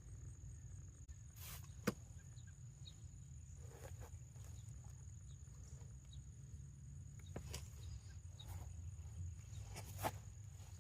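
Quiet background with a steady low hum and a faint high, steady whine, broken by a few faint sharp clicks of a hand tool working at a tire valve stem. The sharpest click comes about two seconds in, and two more come near the end.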